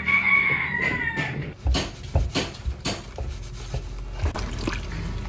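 A house cat meows once, one long call sliding slightly down in pitch. A few dull thumps follow, like bare feet on a wooden floor.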